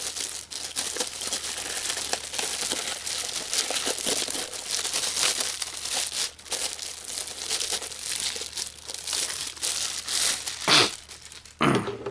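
Plastic packaging crinkling and rustling as it is handled and pulled off, with a louder crackle near the end.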